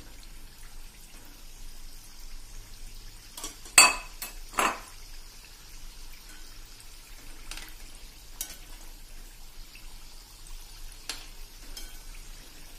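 Samosas deep-frying in very hot oil with a steady sizzle. A metal spoon clinks sharply against the pan twice, about four seconds in, and taps lightly a few more times later.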